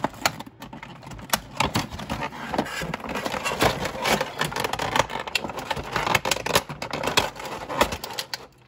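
Thin clear plastic blister tray crackling and snapping with many quick, irregular clicks as an action figure is worked free of it; the handling stops shortly before the end.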